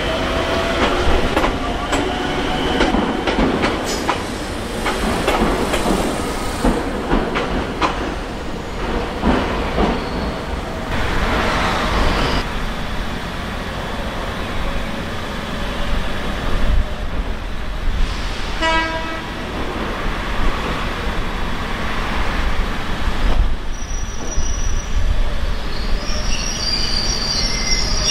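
Ichibata Electric Railway 1000 series electric train running over the yard tracks, its wheels clacking over rail joints and points. About two-thirds of the way through there is a short horn toot, and near the end comes a high wheel squeal.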